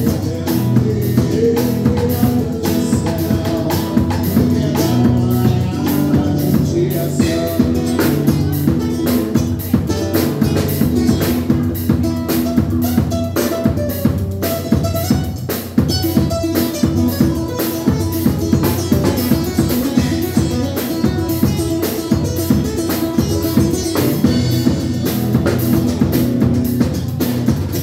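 Live band playing an instrumental passage: a drum kit keeps a steady beat on snare, bass drum and cymbals under sustained guitar notes.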